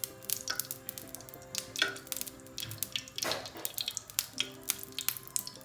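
Background music with held notes, over frequent short crackles and clicks of semolina pancake batter frying in a pan.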